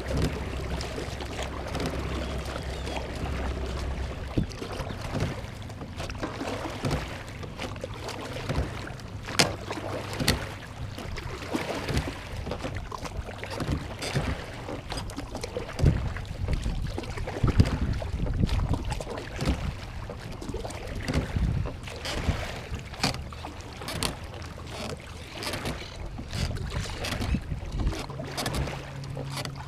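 Oars being rowed in homemade PVC oarlocks on a small boat, with irregular knocks and splashes of the strokes, while an electric trolling motor runs at full thrust. A steady low hum is heard for the first few seconds.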